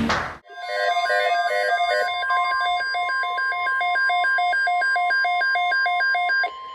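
Emergency alert tones: a steady single tone near 1 kHz, typical of the weather radio warning alarm tone, with a repeating pattern of electronic beeps at several pitches over it, about three a second. The beeps stop near the end while the steady tone carries on. They herald a National Weather Service tornado watch.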